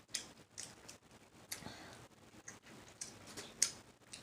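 Close-miked eating sounds: irregular sharp, wet clicks of mouth smacking and chewing, several a second, with a louder click just after the start and another about three and a half seconds in.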